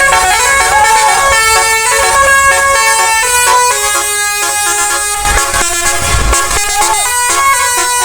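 A bus's 'telolet basuri' multi-trumpet musical air horn playing a loud tune of changing notes, with a couple of short swooping notes.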